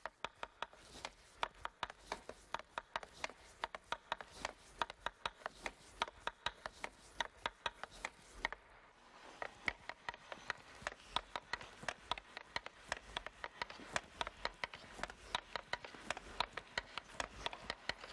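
Hockey stick blade tapping a puck back and forth on ice while stickhandling: a steady run of faint, sharp clicks, about three or four a second, with a brief pause about eight and a half seconds in.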